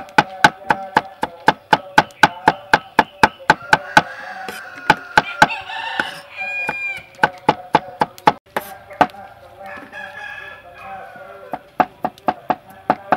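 Cleaver chopping garlic on a wooden chopping board in fast, even strokes, about four a second, pausing midway and resuming near the end. Chickens cluck in the background and a rooster crows about halfway through.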